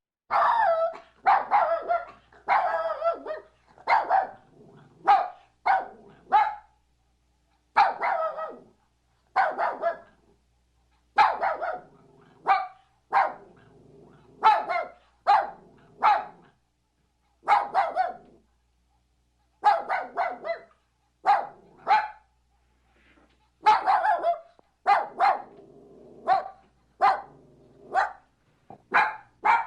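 A puppy barking in short, high-pitched yaps, often in quick pairs or triplets with short pauses between them.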